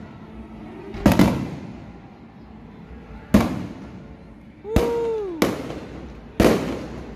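Aerial fireworks shells bursting overhead: five sharp bangs, one to two seconds apart, each trailing off in a rolling echo. A short tone that rises and then falls sounds with the third bang.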